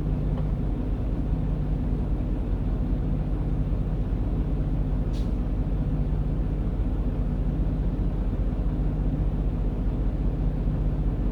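Truck engine idling steadily, heard from inside the cab, with a brief high hiss about five seconds in.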